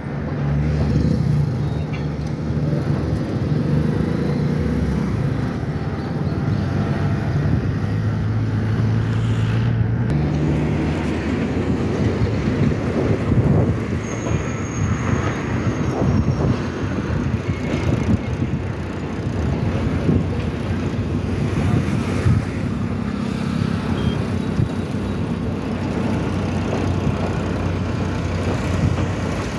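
Train running: a diesel locomotive's steady low engine hum, then from about ten seconds in a rough, clattering stretch of wheels on the track, settling back to the steady engine hum near the end.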